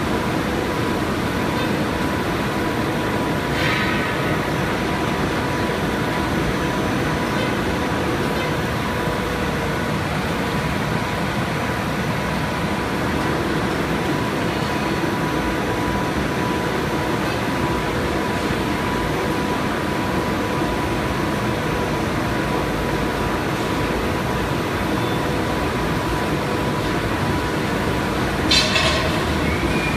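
Plastic film blowing machines running in production: a loud, steady mechanical noise with a faint constant whine. A brief sharper sound rises from it about four seconds in and again near the end.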